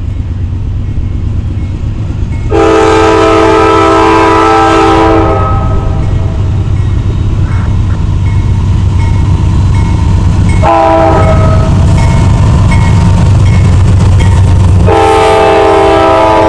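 Norfolk Southern freight train's diesel locomotives approaching and passing close, their engines rumbling louder as they near. The multi-note air horn sounds a long blast, a short blast near the middle, then another long blast near the end.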